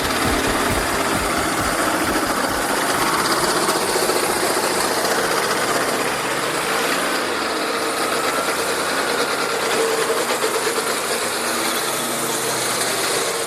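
Stump grinder's engine running steadily, a dense even machine noise.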